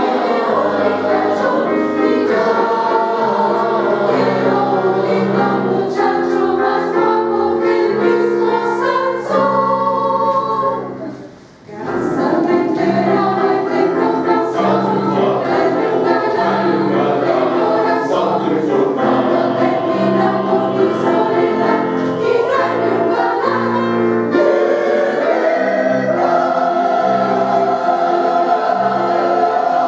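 Mixed choir of men's and women's voices singing, with a short break between phrases about eleven seconds in.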